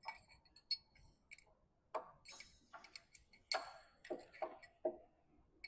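Scattered sharp metallic clicks and clinks, irregularly spaced, some with a brief high ring: hand tools and a bolt being worked on metal.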